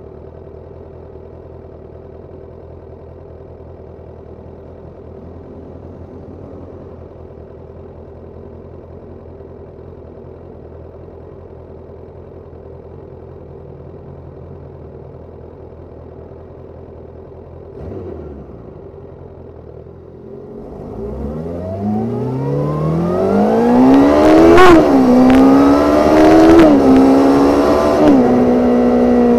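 Suzuki Katana 750 inline-four engine idling steadily, with a single clunk about 18 seconds in. From about 20 seconds it revs up as the bike pulls away, the pitch rising and dropping back sharply three times with upshifts, then holding steady at a cruise, heard from a recorder under the seat.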